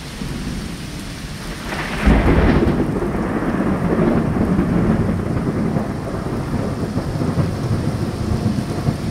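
Heavy rain pouring down in a thunderstorm, with a thunderclap about two seconds in that rolls on as a long rumble.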